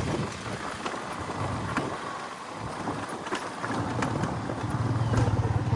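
A vehicle engine running on the move with road and wind noise; its low, rapidly pulsing note eases off in the middle and comes back stronger near the end as it pulls harder.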